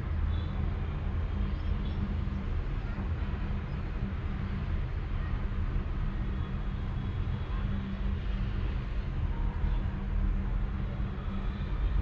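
Domestic cat purring steadily, a low, fast pulsing rumble with no breaks.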